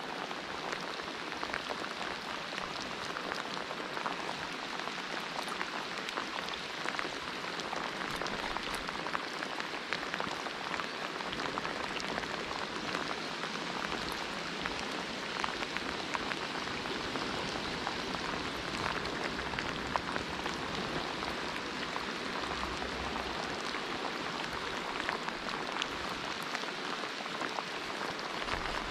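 Steady rain falling, with many small drops ticking close to the microphone.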